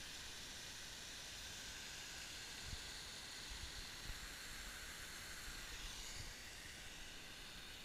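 Small waterfall splashing over a rock ledge into a pool: a steady hiss of falling water. A few low bumps come near the middle, and the sound drops a little about six seconds in.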